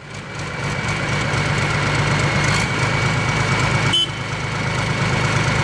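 A heavy vehicle's engine running steadily, with an even low throb and a thin, steady high whine over it; a short click about four seconds in.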